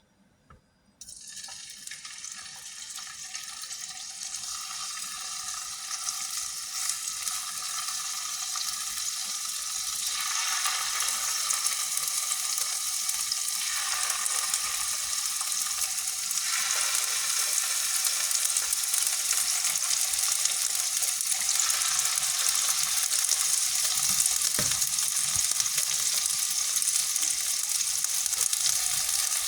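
Chicken meatballs frying in hot oil: a sizzle that starts suddenly about a second in and grows gradually louder.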